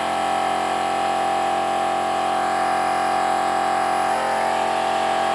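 An electric power tool motor running steadily with an even whine, shifting slightly in pitch about four seconds in.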